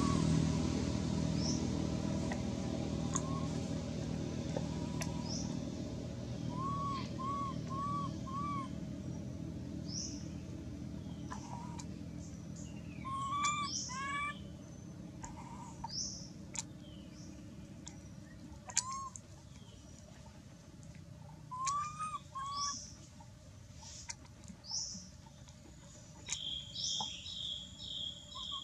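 Birds chirping and calling: scattered short whistled notes and quick upward chirps, with a fast run of repeated chirps near the end. A vehicle's engine hums underneath at first and fades away over the first half.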